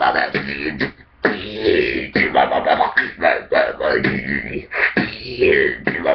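Dubstep-style beatboxing into a cupped hand: mouth-made percussive hits mixed with warbling, buzzing bass sounds imitating a dubstep wobble, with a short break about a second in.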